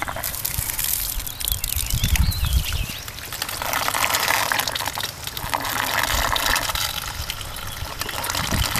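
Water from a garden hose gushing into the spiral-riffled bowl of a small gold centrifuge, rinsing the gold-bearing dirt and concentrate down through the riffles during cleanout.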